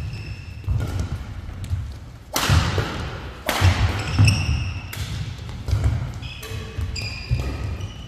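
Badminton doubles rally: rackets striking the shuttlecock several times, court shoes squeaking sharply on the court mat, and feet thudding as players lunge and land.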